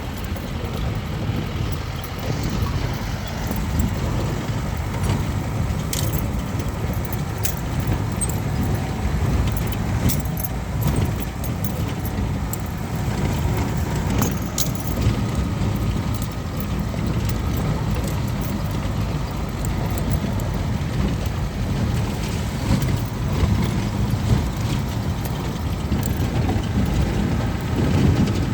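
Vehicle driving over a rough unpaved road: a steady low rumble with frequent sharp rattles and clinks as it bounces.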